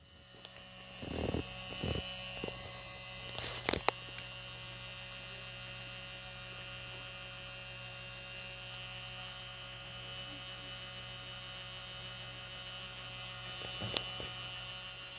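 Steady electrical hum, with a few light handling knocks in the first four seconds and one more near the end.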